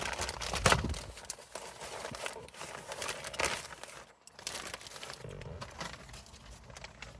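Packaging being opened by hand: crinkling and tearing plastic with sharp clicks and knocks, loudest in the first second.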